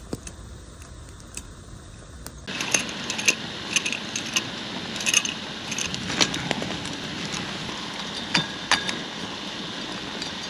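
Corkscrew being worked into the cork of a wine bottle: scattered small metallic clicks and taps against glass, thicker from about two and a half seconds in.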